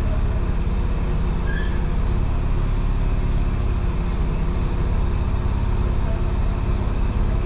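Old tram's cab with a steady low mechanical rumble and hum while the tram stands still, even and unbroken throughout.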